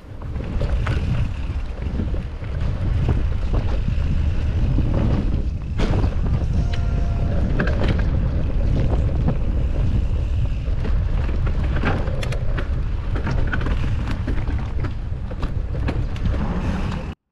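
Wind buffeting the microphone, mixed with the rumble and rattle of a mountain bike ridden over rough sandy ground, with frequent knocks and clicks from bumps. It cuts off suddenly near the end.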